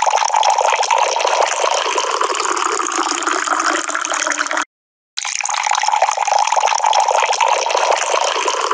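A loud, steady rushing hiss like gushing water, cut off by about half a second of dead silence midway and then resuming.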